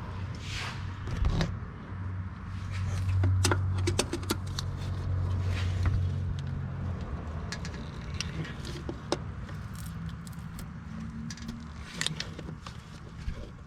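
Scattered metal clicks and clinks of a tool working on an overtightened oil filter, over a low steady hum that swells for a few seconds in the middle.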